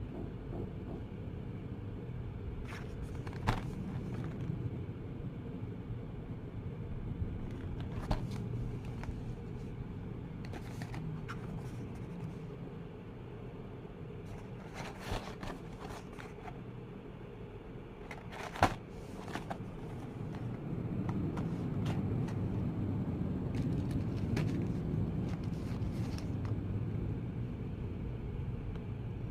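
A steady low rumble, a little louder in the second half, with scattered short sharp clicks.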